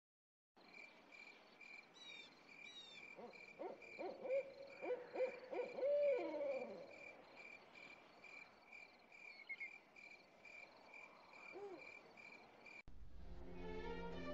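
Forest ambience with an owl hooting a run of low hoots in the middle, the last one sliding down in pitch, over a steady high chirp repeating about three times a second, with a couple of quick bird chirps early on. An orchestra starts playing near the end.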